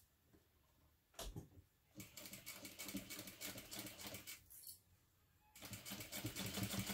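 Sewing machine stitching in two runs of fast, even clicks, each two to three seconds long with a pause of about a second between, as it sews a long basting stitch. A single knock comes about a second in, before the first run.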